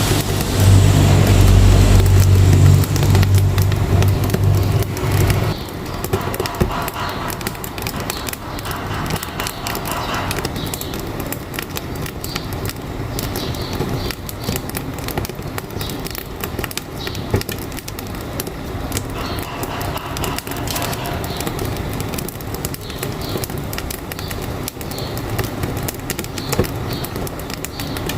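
Wood fire in a wood-burning stove crackling with many fine, irregular pops throughout. A truck's low engine hum runs under it for the first five seconds or so and stops abruptly.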